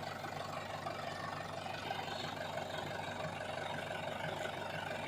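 Engine of a rice threshing truck running steadily.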